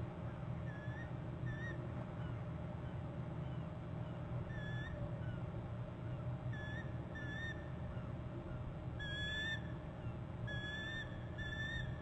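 A bird's short, high whistled chirps, given singly or in pairs at irregular intervals, then in a quicker string about nine to eleven seconds in, over a steady low hum.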